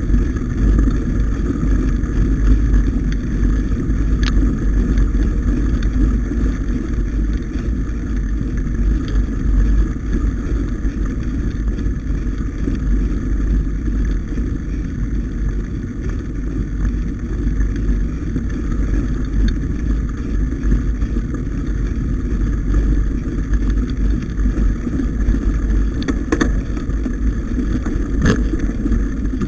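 Steady low rumble of wind buffeting a bike-mounted camera and mountain bike tyres rolling over a rough, snow-patched dirt track. There are a few sharp knocks, one about four seconds in and two near the end.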